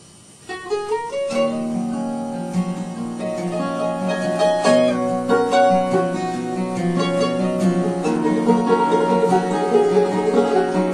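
A band playing the instrumental intro of a song on plucked acoustic string instruments. It comes in about half a second in and fills out a second later.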